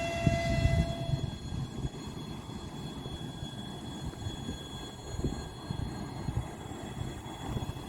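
Horn of a 2ES5K 'Ermak' electric locomotive sounding one held note, cutting off about a second in, over the low rumble of the freight train running on the rails.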